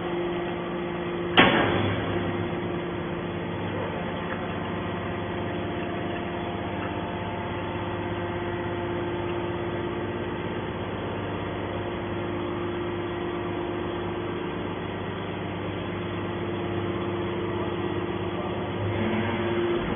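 Scrap-metal processing machinery running with a steady drone and hum, one sharp metallic bang about a second and a half in.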